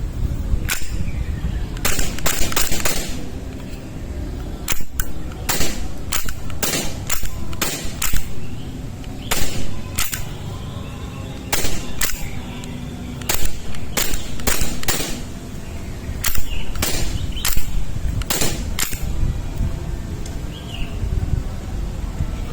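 Glock 17 Gen 6 gas blowback airsoft pistol firing about thirty shots, sharp cracks in quick strings of two to five separated by short pauses.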